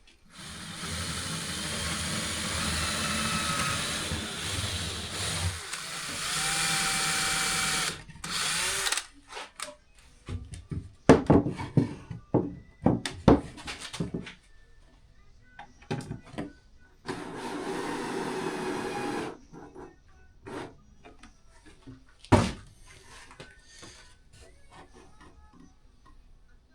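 Power drill drilling and driving screws into wooden boat steps, with the motor's pitch shifting under load. It runs for several seconds at the start, then gives a short burst and a second run past the middle, with clicks and knocks of handling in between and one sharp knock near the end.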